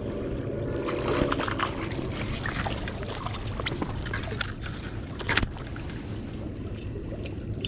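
Water sloshing and trickling around a kayak, over a steady low rumble, with scattered clicks and knocks and one sharper knock about five seconds in.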